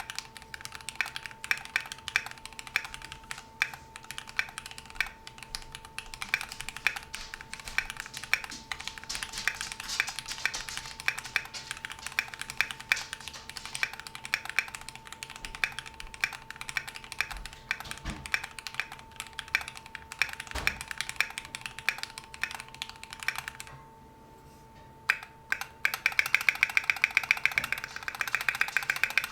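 Keychron Q2 aluminium-cased mechanical keyboard with Krytox 205g0-lubed Gateron Brown switches and a tape mod, being typed on continuously at a quick pace. About three-quarters of the way through, the typing stops for about a second, followed by a few single keystrokes and then a very fast run of keystrokes. A faint steady hum sits underneath.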